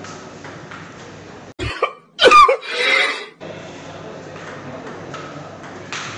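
Table tennis ball clicking lightly against paddles and table during a rally. About a second and a half in, a loud vocal sound effect is cut in abruptly over it for under two seconds, then the rally clicks return.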